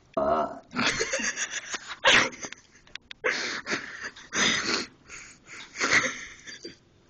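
A person burping over and over: about six separate burps, each under a second long.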